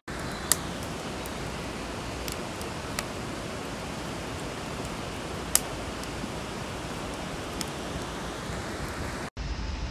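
Steady rushing hiss of heavy rain or running water, with a few sharp ticks of drops landing close by; it cuts off abruptly near the end.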